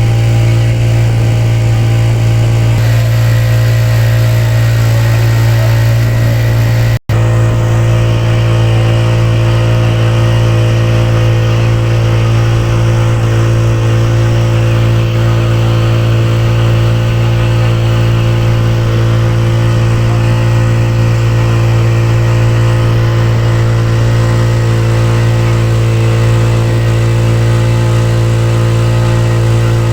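Motorboat engine running loudly at a steady speed with an even drone. The sound cuts out completely for a split second about seven seconds in.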